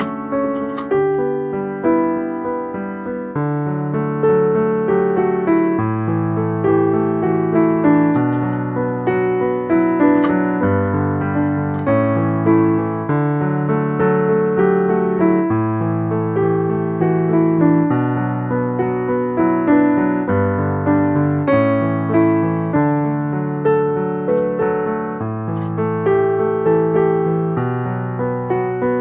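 Piano music, a flowing melody over held low notes.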